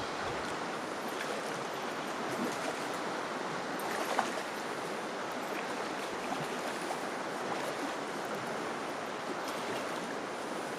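Steady rushing of a glacial river, with a faint click or knock about four seconds in.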